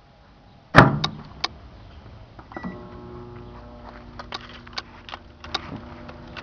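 An electrolytic capacitor heated inside a microwave oven bursting with a single loud pop, less than a second in. About two seconds later a short beep, then a steady electrical hum starts, with scattered sharp crackles and pops over it.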